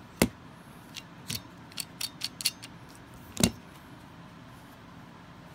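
Sharp clicks and knocks of a plastic-bodied ratchet tube cutter being handled and set down on a tabletop. The loudest comes just after the start and another about three and a half seconds in, with smaller clicks between; after that there is only a faint steady hiss.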